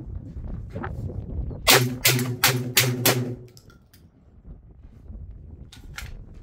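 Tokarev TT12 12-gauge semi-automatic shotgun firing a rapid string of about five shots in roughly a second and a half, starting just under two seconds in. It is cycling a mixed load of birdshot, slugs and buckshot without a hiccup.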